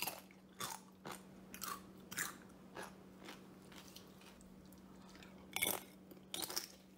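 Crisp crunching of baked dried-tofu chips being bitten and chewed: about a dozen short, irregular crunches, the loudest about five and a half seconds in.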